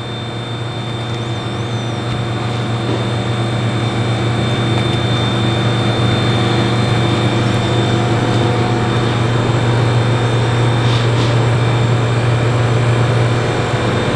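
Steady low mechanical hum of kitchen ventilation running, slowly getting louder.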